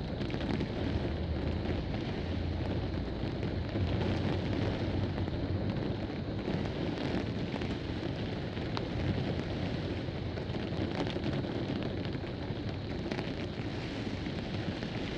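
Heavy rain and strong wind in a severe thunderstorm, a steady downpour hiss over a deep rumble of wind buffeting the microphone.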